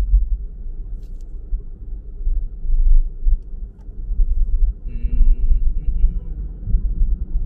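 Car driving along a road: an uneven, gusty low rumble of road and wind noise. A brief high-pitched sound comes about five seconds in, with a shorter one a second later.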